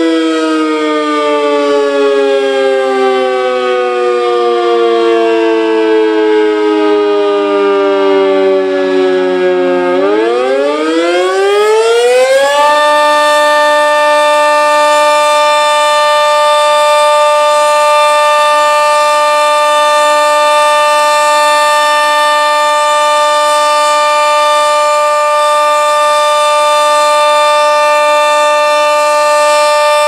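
Sentry 40V2T dual-tone electromechanical tornado siren sounding its steady Alert signal. Its two-note wail slides down in pitch as it winds down, then about ten seconds in it spins back up within a couple of seconds and holds a steady two-note chord.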